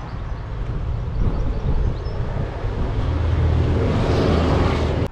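A motor vehicle's engine running with a low, steady hum and road noise, growing louder near the end.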